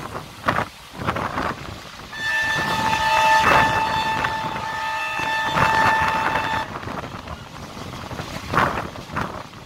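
Train's locomotive horn sounding one long, steady blast of about four and a half seconds, starting about two seconds in. It is heard from the open doorway of a moving passenger coach, over the rush of wind and the train's running noise.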